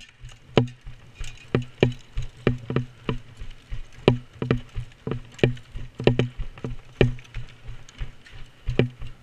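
Footsteps of a person moving quickly over a gritty concrete floor strewn with debris: a run of heavy footfalls, about two a second at an uneven pace.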